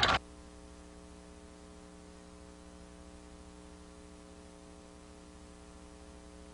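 Steady electrical mains hum, a low buzz with a stack of evenly spaced overtones. It is left in the recording after the crowd noise cuts off abruptly at the very start.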